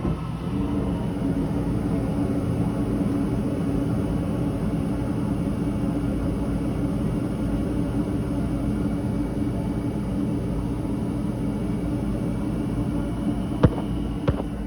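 Furnace blower running with a steady hum and rumble, starting just after a click at the beginning. A couple of sharp clicks come near the end.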